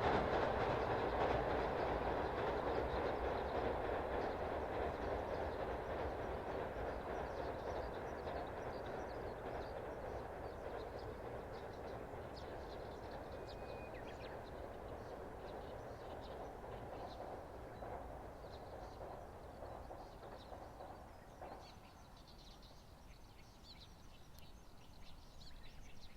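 A passing train fading steadily into the distance, its rumble and rail clatter dying away, with birds chirping more clearly from about halfway through.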